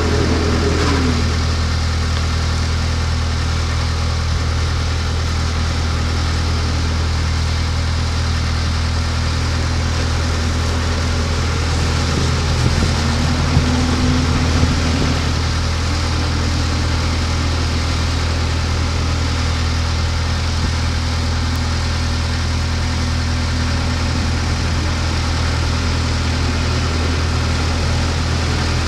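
JCB 541-70 Agri telehandler's diesel engine idling steadily, with a brief change in note about halfway through.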